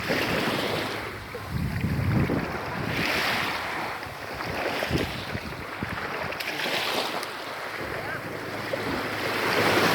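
Sea waves washing onto a sandy beach in repeated surges every couple of seconds, with wind buffeting the microphone.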